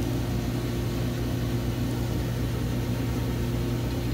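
Steady low machine hum with a few constant tones, unchanging throughout.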